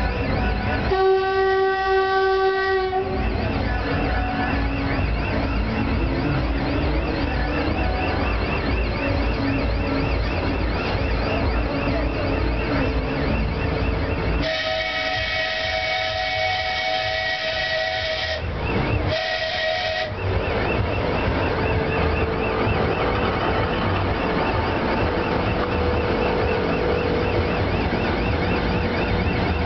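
A 2TE116 diesel locomotive running in with a passenger train, its 16-cylinder diesel engines running steadily. It sounds its horn three times: a two-second blast about a second in, a long blast of nearly four seconds about halfway through, and a short one right after.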